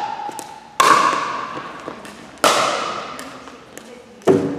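Pickleball paddles hitting the plastic ball in a rally: three sharp pocks about a second and a half apart, each ringing on in the echo of a large gym, the last one deeper than the others.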